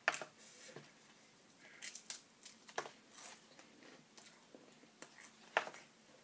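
Eating sounds: a spoon scooping chili from a paper cup, and chewing with scattered wet mouth clicks and smacks, the sharpest about five and a half seconds in.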